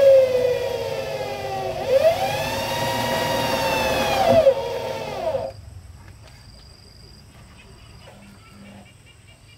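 Corded electric drill driving roofing screws into corrugated iron sheet: the motor whine sinks in pitch, speeds back up and falls again as the screw bites, then stops suddenly about five seconds in.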